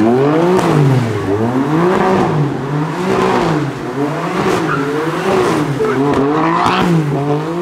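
Car engine revved hard, its pitch rising and falling over and over about once a second, loud.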